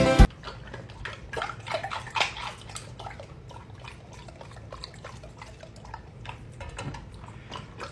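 A large dog lapping water from a stainless steel bowl: a steady run of quick wet laps, about three or four a second.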